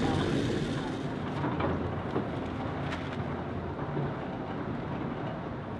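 Waterwheel-driven flour mill machinery running with a steady low rumble, and a couple of faint clicks.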